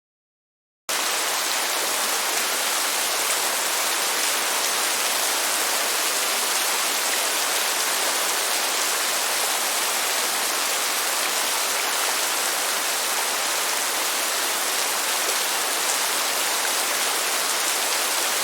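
Steady, even hiss of falling water, as of heavy rain, cutting in suddenly out of silence about a second in and holding at one level.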